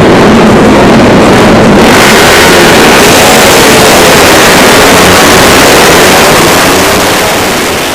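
A 130 cc automatic scooter engine running loud and distorted, its pitch rising and falling as it revs, fading out near the end.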